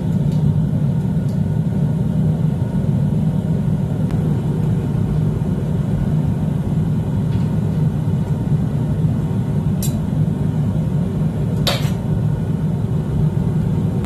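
Propane forge burner running steadily with a low rumbling roar. Late on there is a faint click and then one sharp metallic clink, from tongs handling the steel at the forge mouth.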